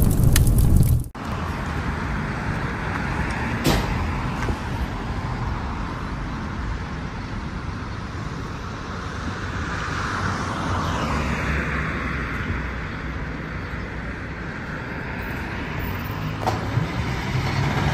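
A booming intro sound effect cuts off about a second in. After it, a 2007 American LaFrance Eagle pumper's Detroit Diesel Series 60 engine idles with a steady low rumble.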